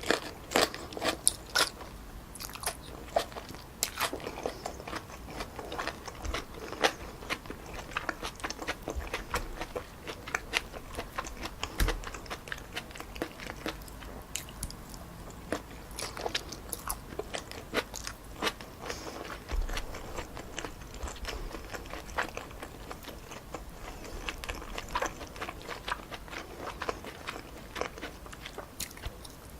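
Close-miked mouth sounds of someone eating stir-fried wide glass noodles with pork and vegetables: irregular wet clicks, smacks and crunchy bites of chewing, with the sharpest clicks in the first few seconds.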